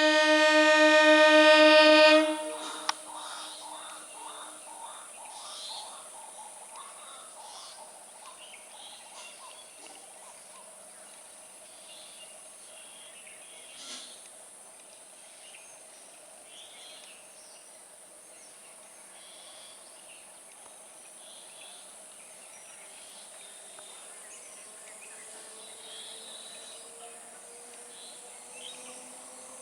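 A train horn sounds loudly for about two seconds and cuts off. Faint outdoor ambience with scattered high chirps follows, with a faint hum slowly rising in pitch near the end.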